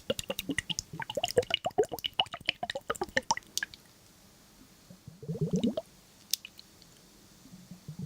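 Wet squishing and dripping sounds: a quick run of small wet clicks and drips for the first three and a half seconds. A short squelch, rising in pitch, follows about five seconds in.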